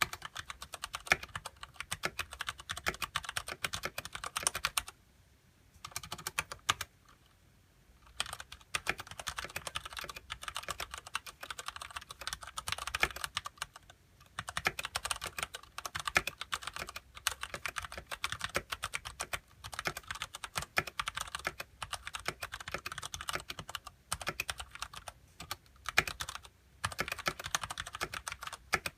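Continuous fast typing on a Ducky Shine Mini mechanical keyboard with Cherry MX Brown switches and stock ABS keycaps: a dense stream of key clacks with short pauses, two of them about five and seven seconds in.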